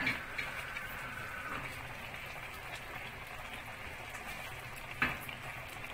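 Pot of basmati rice layered over chicken cooking on a low flame, giving a soft steady bubbling as the last of the water cooks off. A short click about five seconds in.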